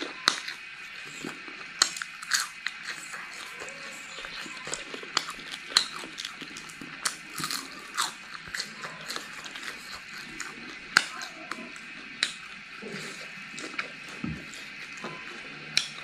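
Close-up mouth sounds of chewing crispy deep-fried cicadas: irregular sharp crunches and crackles, about one every second or so, over a steady faint high-pitched hum.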